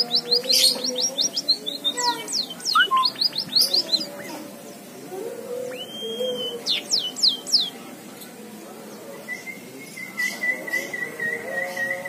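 White-headed munia (emprit kaji) singing a canary-style song: fast runs of descending chirps in the first few seconds and again around seven seconds in, then a steady warbling trill from about nine seconds in.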